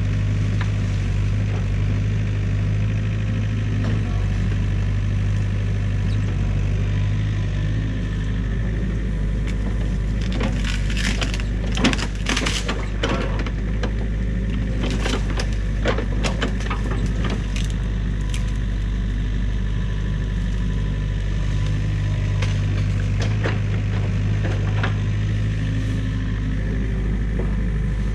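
New Holland Kobelco mini excavator's diesel engine running steadily, with the sticks and branches of a beaver dam cracking and snapping under its bucket. A burst of snaps comes about ten seconds in, and a few more come later.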